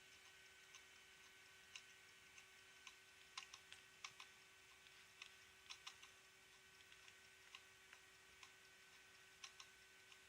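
Failing hard disk drive clicking: faint, irregular sharp ticks, some in quick pairs, over the steady hum of the spinning drive. The clicking is the sign of a dying drive, with hardware ECC errors and reallocated sectors climbing fast.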